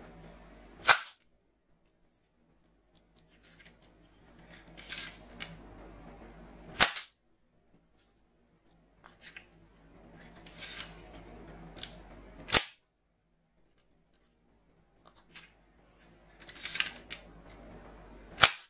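Blaze Storm toy soft-dart bow being shot four times, about six seconds apart, each shot a sharp snap. Between the shots come quieter plastic rustling and small clicks as the bow is loaded and drawn.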